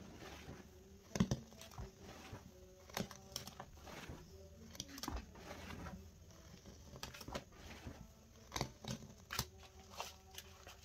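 Gloved hands squishing and kneading a thick, foamy paste of dish soap and laundry powder in a plastic tub: irregular wet squelches and crackling pops, with sharper pops about a second in and several more in the second half.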